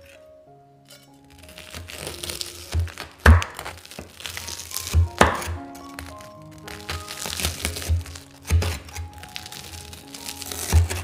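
A large kitchen knife slicing through crisp toasted bread topped with baked cheese: several cuts, each a crackling crunch of crust ending in a thud as the blade hits the wooden cutting board. Soft piano music plays underneath.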